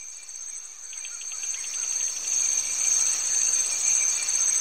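Insect chorus: a steady high-pitched shrill with a rapid run of chirping pulses joining about a second in, swelling up as it fades in.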